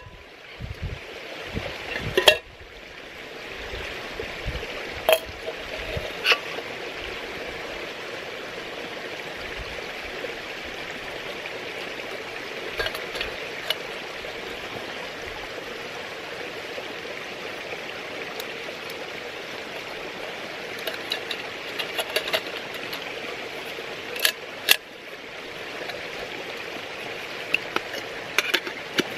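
Small titanium camping gear, a folding stove, gas canister, mug and spork, clinking and knocking now and then as it is packed into the titanium mug and the lid is fitted, over a steady rushing background.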